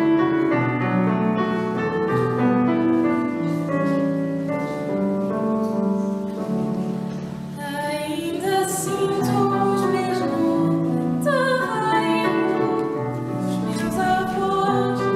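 A song setting a poem to music: piano accompaniment with singing, a higher voice with vibrato standing out from about eight seconds in.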